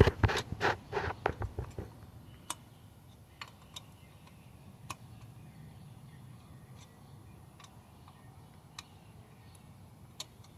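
Metal wrench clicking against a nut as it is fitted and turned in small increments: a quick run of clicks in the first two seconds, then single faint ticks every second or so.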